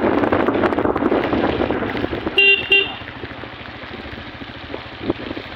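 A vehicle horn beeps twice in quick succession, briefly, about two and a half seconds in. Around it runs the steady rush of wind and wet road noise from riding a two-wheeler in the rain, louder in the first couple of seconds.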